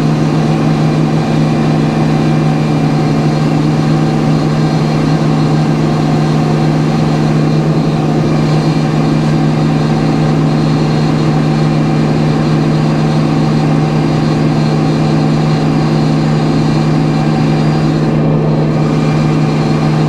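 Engine running steadily at a constant speed, one unchanging drone throughout.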